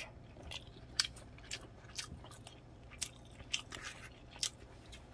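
A person chewing a mouthful of rice-bowl food close to the microphone, with irregular sharp, wet mouth clicks and smacks.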